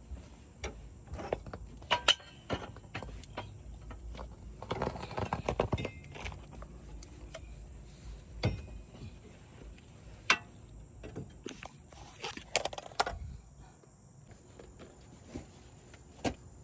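Scattered metallic clinks and knocks of hand tools and parts being handled, with a quick jangling rattle about five seconds in and a few sharper single knocks.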